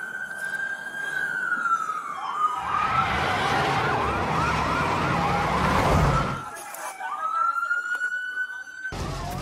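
Police car sirens: a slow wailing tone, then a fast yelp over loud engine rumble of cars racing for about four seconds in the middle, then the slow wail rising again near the end.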